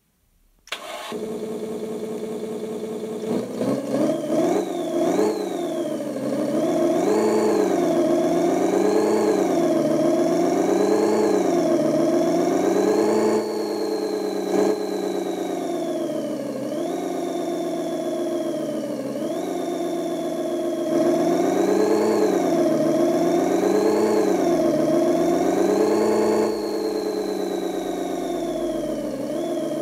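Simulated Land Rover V8 engine sound from an ESP32 RC sound controller, played through a small speaker. It starts about a second in, then revs with the pitch climbing and dropping back again and again as the simulated three-speed automatic transmission shifts up, easing off and pulling again in turns.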